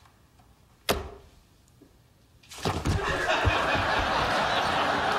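A single sharp snap about a second in as a laptop lid is shut, then from about halfway a studio audience laughing.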